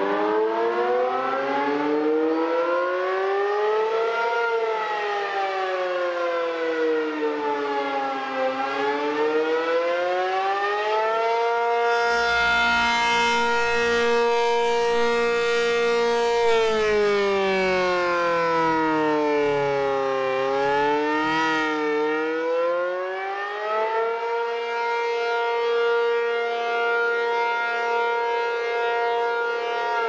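ACA P-50 rotating electromechanical siren sounding the attack signal: one loud wailing tone that climbs and falls in slow glides, holding steady at the top for a few seconds twice, about twelve seconds in and again near the end. Its loudness swells and ebbs as the horn turns.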